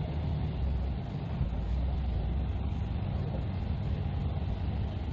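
Airport passenger bus driving along, heard from inside the cabin: a steady low engine and road rumble.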